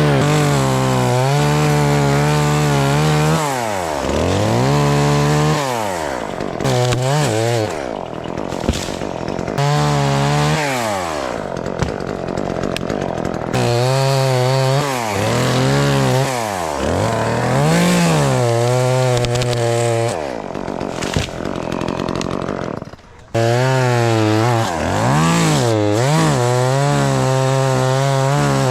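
Gas chainsaw cutting black walnut limbs at high revs. The engine pitch falls away and climbs back many times as the throttle is let off and squeezed again, with a brief drop to a quieter idle a little before the end.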